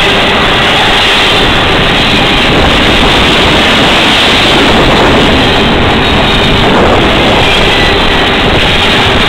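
Double-stack container well cars of a CSX freight train rolling past close by: a loud, steady rolling noise of steel wheels on the rails.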